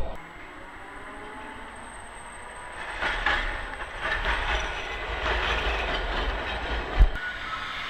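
Vintage Milan tram (Class 1500 'Ventotto') rolling past on street track, its wheels clattering over rail joints and crossings from about three seconds in. A single heavy thump comes about seven seconds in.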